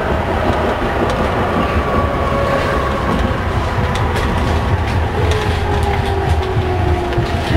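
Hamburg U-Bahn DT3-E train running into a station: a steady low rumble with the electric drive's whine slowly falling in pitch as the train slows. From about three seconds in, sharp wheel clicks over rail joints.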